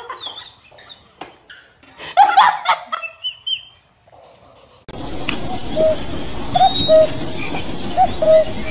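A man laughing in short bursts, then a steady outdoor hiss with short repeated chirps.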